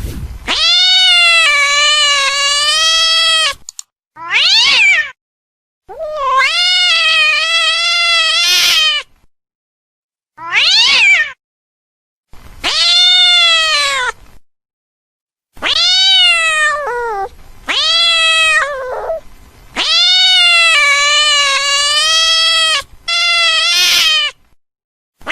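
Angry cat meowing: a series of about nine drawn-out, wavering yowls separated by short pauses, some long and some brief.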